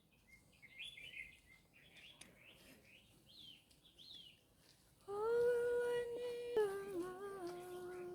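Faint chirping bird calls, then a person humming two long held notes, the second a step lower, louder than the birds.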